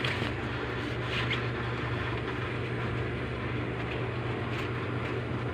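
Steady hum of a sewing machine's motor running, even throughout with no clear starts or stops.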